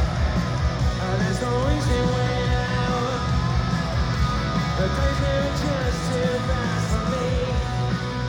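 Rock song with guitar and a sung vocal line.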